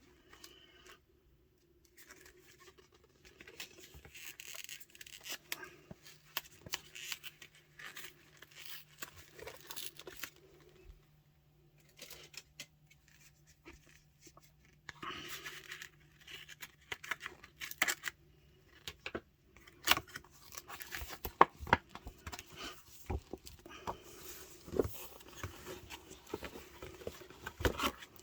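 Product packaging being unwrapped by hand: paper or plastic wrapping tearing and rustling in bouts with short pauses, then sharper clicks and taps in the last third as the box and its parts are handled.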